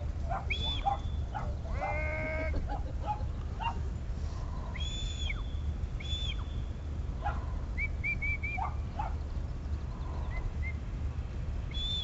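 A shepherd's whistle giving commands to a working sheepdog: several short, arched high whistles, then a quick run of four short pips a few seconds later. About two seconds in, a sheep bleats once. A steady low rumble runs underneath.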